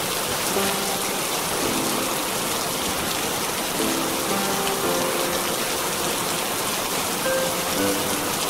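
Steady rain, with a slow, soft melody of held notes playing underneath.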